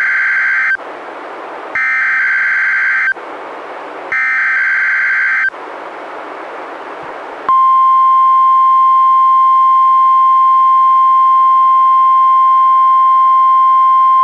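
NOAA Weather Radio Required Weekly Test heard through a Reecom R-1630 weather radio. First come the end of one SAME digital header burst and two more, each a harsh data screech about a second and a half long, with about a second of radio hiss between them. Then, about seven and a half seconds in, the loud, steady 1050 Hz warning alarm tone begins and holds.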